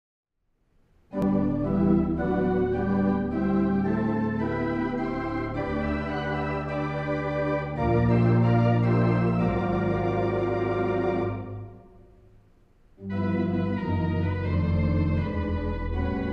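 Organ played from a console with several keyboards, sounding sustained chords over a deep bass line. It starts about a second in, dies away for a second or so after the first phrase, then begins again.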